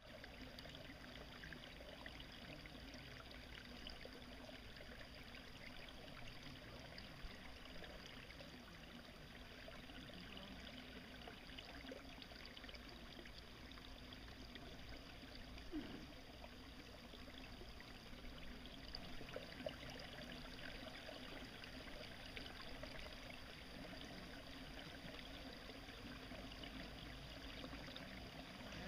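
Faint, steady sound of running water trickling.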